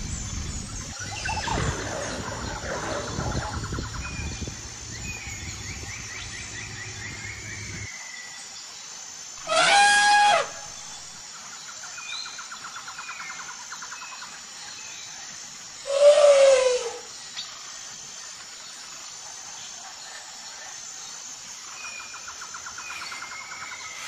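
An African elephant trumps twice, each loud blast about a second long, the second dropping in pitch at its end, over faint bird chirps and insect trills. Before the first call, a low rumble of background noise cuts off abruptly.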